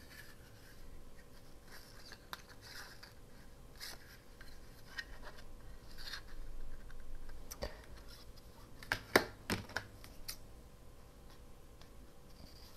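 Paper rustling and scraping as a small sheet of printed paper is handled on a cutting mat, with a few sharp plastic clacks from craft paper punches being picked up and set down a little past halfway.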